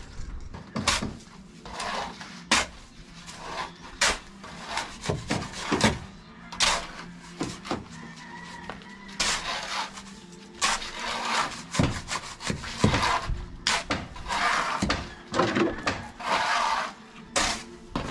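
Masonry work: repeated sharp knocks and scrapes, then in the second half steel shovels scraping and chopping through wet cement mortar on a concrete floor, in long rasping strokes.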